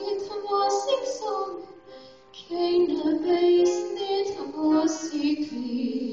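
A woman singing solo into a microphone, a slow melody of long held notes. There is a brief breath pause about two seconds in, and a long note is held at the end.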